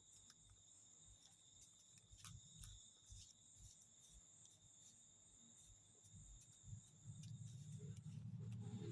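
Near silence with a faint, steady, high-pitched insect trill, crickets, and a few faint clicks; a low rumble swells over the last two seconds.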